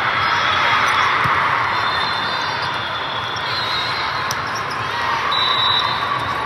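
Indoor volleyball match court noise in a gymnasium: a steady hubbub of many voices, with short high shoe squeaks and a few sharp ball hits.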